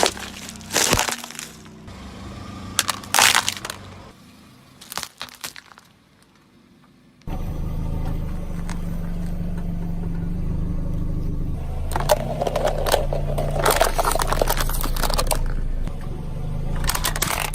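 Repeated cracking and crunching of something brittle being crushed, in short bursts. After a brief lull, a steady low mechanical hum starts suddenly, with more crunching over it.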